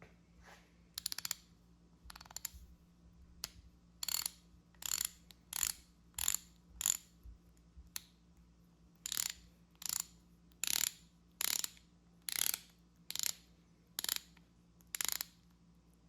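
Half-inch drive Montgomery Ward Wardmaster ratchet, freshly cleaned and reassembled, swung back and forth. Its pawl clicks over the gear in short runs of sharp clicks, about one stroke every 0.7 seconds.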